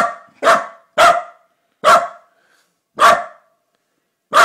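A corgi barking six sharp, loud single barks at uneven spacing, about half a second to a second and a half apart, wary of an iPad held in front of her.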